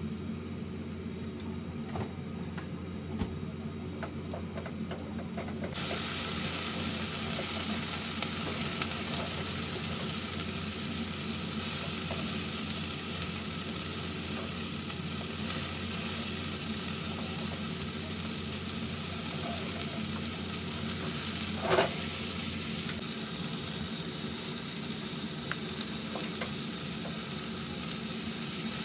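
Vegetables sizzling in a non-stick frying pan while a slotted spatula scrapes and turns them. The sizzle turns suddenly louder and hissier about six seconds in, and a short, louder scrape stands out about three-quarters of the way through.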